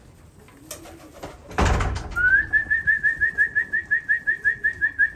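Racing pigeons cooing in the loft. About a second and a half in comes a loud short clatter, followed by a rapid series of high-pitched beeps, about five a second, lasting some three seconds.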